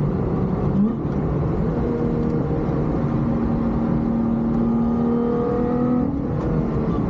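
Lotus Exige S3's supercharged V6 pulling hard under acceleration, heard from inside the cabin over tyre and wind noise. There is a quick shift about a second in, then the pitch climbs slowly through the gear before dropping briefly near the end.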